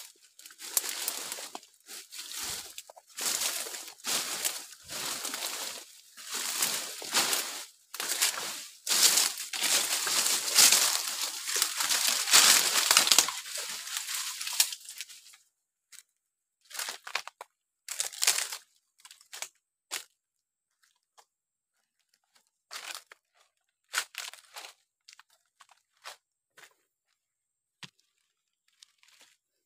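Rustling and crackling of leafy branches and dry leaves as someone pushes through dense brush and steps over dry leaf litter and twigs. It is dense and continuous for about the first fifteen seconds, then thins to scattered crackles and snaps.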